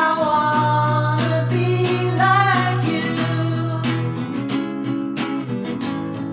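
Song demo with acoustic guitar strummed in a steady rhythm. A held melody note sounds over it at the start and another about two seconds in, with no words.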